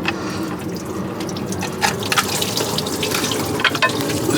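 Engine coolant running and splashing out of a 5.7L Hemi V8 as its old water pump is pried loose, with scattered small clicks and knocks of metal.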